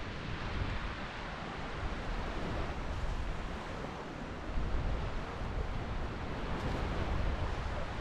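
Small surf breaking and washing up a sandy beach in a steady hiss, with wind buffeting the microphone in uneven low gusts.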